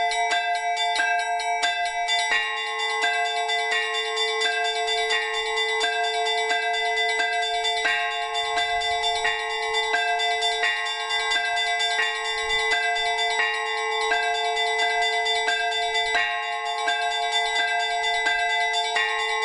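Orthodox monastery church bells rung as the call to the morning service. Small bells are struck about three times a second in a repeating pattern over the steady hum of larger bells, and the pattern changes about two seconds in.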